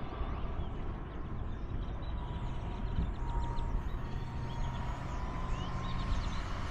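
Wind rumbling on the microphone, with the faint steady whine of a distant model jet's kerosene turbine in flight that fades out near the end.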